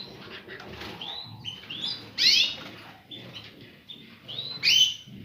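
Caged finches chirping: a run of short, rising chirps, with louder bursts of chirping about two seconds in and again near the end.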